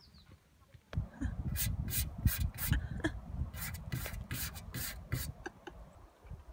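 A hand rubbing across a dusty metal licence plate on a car, in quick scraping strokes about three a second. The strokes start about a second in and stop shortly before the end.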